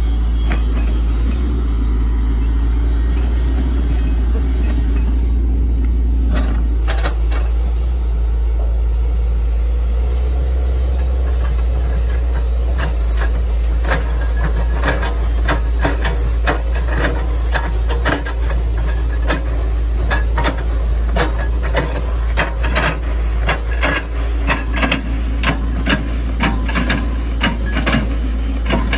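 Hitachi ZX110 MF excavator's diesel engine running steadily, with a run of sharp cracks and knocks that come thick and fast through the second half, as the machine chops through an oil palm trunk.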